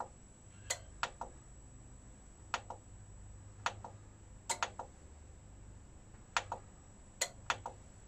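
Sharp plastic clicks of the input selector button on a Yamaha RX-V357 AV receiver's front panel, pressed repeatedly, often in quick pairs, as it steps through the inputs. A faint steady hum lies underneath.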